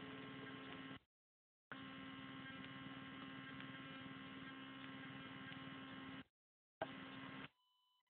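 Low, faint electrical hum with hiss, cutting out three times to dead silence, with a small click as it comes back near the end.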